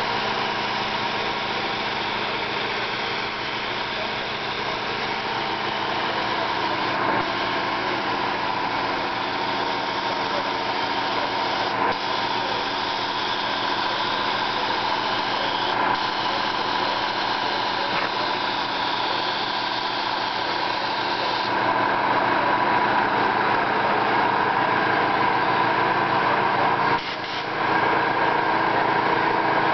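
Gravity-feed spray gun hissing steadily as it sprays paint, with a steady motor drone underneath. The hiss gets louder about two-thirds of the way through and drops out briefly near the end.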